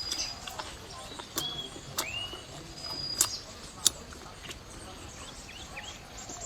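Close-up eating sounds: a handful of sharp clicks and smacks from chewing and gnawing, with birds chirping now and then behind.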